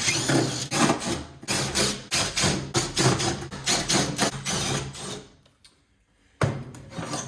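Hand tools working on the pressed-steel casing of an instant gas water heater as its top and bottom panels come off: a run of irregular metallic knocks and clanks that stops about five seconds in and starts again near the end.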